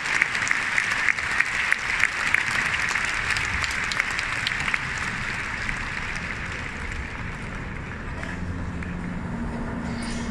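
An audience clapping: dense applause that thins out and fades away after about five seconds.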